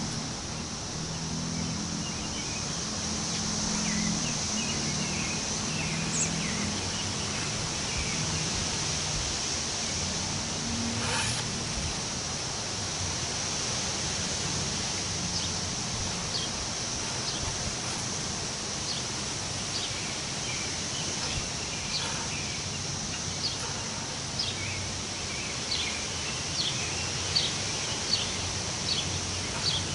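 Wind rustling the leaves of forest trees, an even hiss with a steady high-pitched ring over it. Birds chirp in short calls that grow more frequent in the second half, and a faint low drone is heard in the first half.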